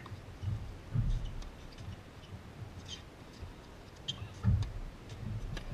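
Tennis rally: a few sharp pops of the ball coming off racket strings and bouncing on the hard court, over low thumps, the loudest about four and a half seconds in.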